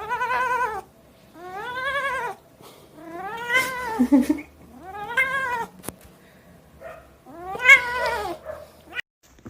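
A domestic cat meowing in five drawn-out calls, each rising then falling in pitch.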